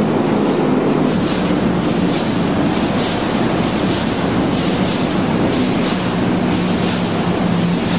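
A huge 1400-tonne multi-cylinder engine running, with a steady low hum and a regular mechanical clatter about twice a second.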